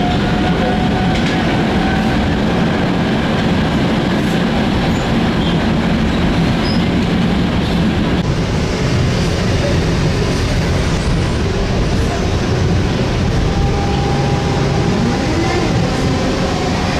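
Tram running on its rails, a steady rumble of wheels and running gear with faint motor whines; one whine rises in pitch near the end as it picks up speed.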